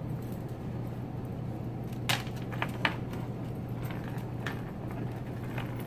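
A few light, sharp clicks as the leader's metal swivel and hook are handled and pulled through a braid loop, over a steady low hum.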